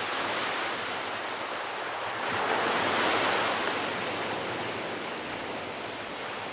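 Low surf breaking and washing up a sandy beach, one wave swelling louder about halfway through.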